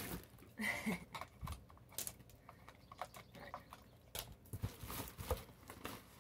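A cardboard shipping box being handled and lifted, giving scattered light knocks and scrapes at irregular intervals.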